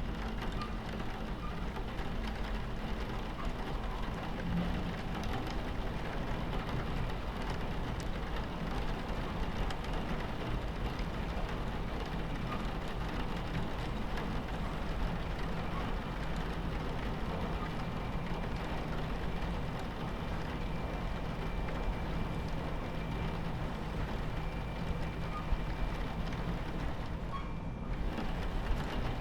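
Rain on a train window over the steady low rumble of a train running on its tracks.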